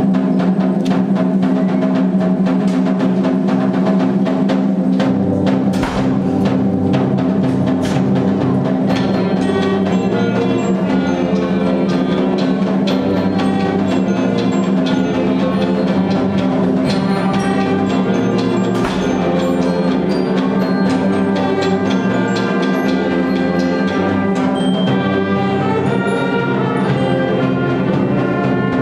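Middle school concert band playing a Celtic-style piece live: woodwinds and brass over a held low note, with percussion strikes. A moving bass line comes in about five seconds in, and a busier melody joins a few seconds later.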